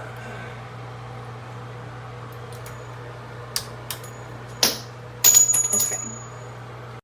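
A few sharp clicks, then a short clatter of small hard metal objects with a high ringing tone about five seconds in, over a steady low hum.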